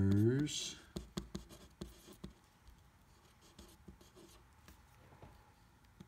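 Pen writing on a sheet of paper: faint, scratchy strokes as a word is written out, thinning out after about two seconds.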